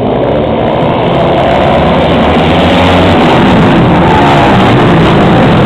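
Several dirt-track racing motorcycles at full throttle passing close, engines getting louder over the first couple of seconds, their pitches rising and falling as riders work the throttle through the turn.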